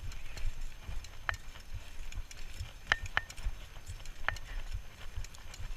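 Bicycle rolling over bumpy sandy dirt, heard from a handlebar-mounted camera: a steady low rumble of wind and ground noise, with a few sharp metallic clicks from the bike jolting over bumps, some ringing briefly.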